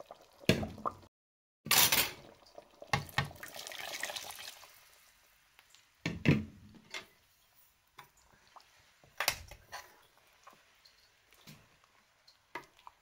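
Thick peanut sauce simmering in a pot over medium heat, bubbling with irregular plops and sharp pops and a short stretch of hiss. The sound drops out briefly about a second in.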